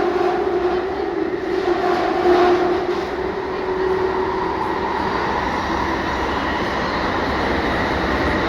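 Jubilee Line 1996 Tube Stock train running: a steady rumble of wheels on rail, with a whine of several held tones from its traction equipment. A higher tone joins about halfway through.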